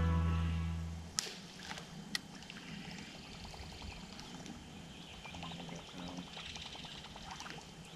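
Background music fading out about a second in, then quiet water ambience: faint splashing and trickling of water against the boat's hull, with two sharp clicks about a second apart.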